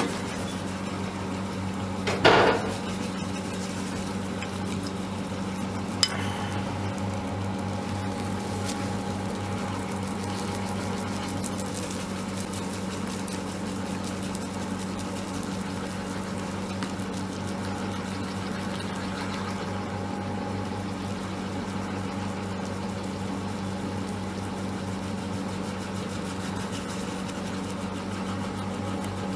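Bread machine with a mochi-pounding function running, its motor humming steadily as the paddle turns the ball of steamed glutinous rice in the pan. There is a single thump about two seconds in and a short click around six seconds in.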